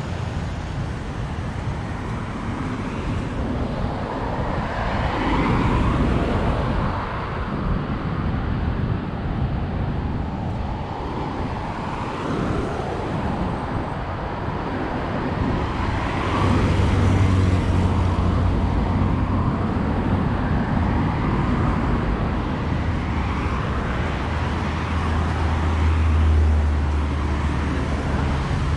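Road traffic on a seaside avenue: cars passing one after another, swelling and fading as each goes by, with a low steady engine hum from about halfway through.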